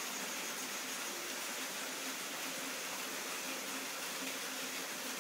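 Steady hiss with a faint low hum underneath, unchanging throughout and with no distinct knocks or clicks.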